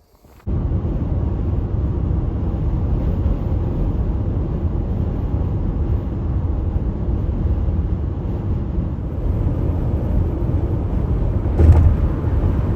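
Steady low rumble of a car driving at road speed: tyre, engine and wind noise. A brief louder bump comes near the end.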